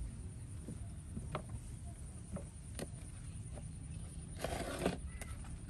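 Light taps and scuffs of a baby monkey's hands and feet moving on a plastic tabletop, a few separate knocks spread out, then a brief rustle about four and a half seconds in, over a steady low rumble.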